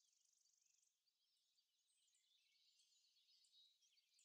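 Near silence, with very faint high bird chirps and a thin insect-like trill far in the background.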